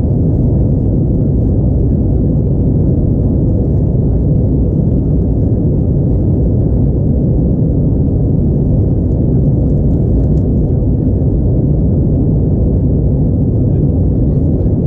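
Steady, loud low rumble inside the cabin of an Airbus A321neo climbing after takeoff: its CFM LEAP-1A turbofans at climb thrust together with the rush of air past the fuselage.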